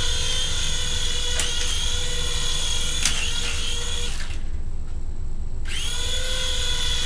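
Small electric motors and rotors of a Hasbro remote-control Republic Gunship toy running with a steady high whine. The whine cuts out about four seconds in and spins back up about a second and a half later, with a couple of sharp clicks along the way.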